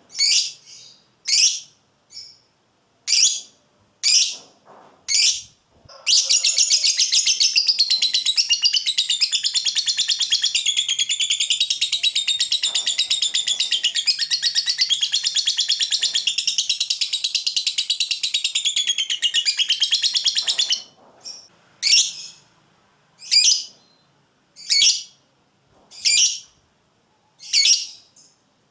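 Lovebird giving sharp single calls about every second and a half, then about six seconds in breaking into a long, rapid, unbroken chattering 'ngekek' that lasts about fifteen seconds before it goes back to single calls. This long ngekek is the song that keepers prize in a fighter lovebird.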